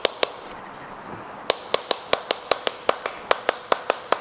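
Hammer tapping on a metal tool to shock loose a stuck part on a motorbike engine: a few sharp taps, then about a second and a half in a quick, even run of about five taps a second.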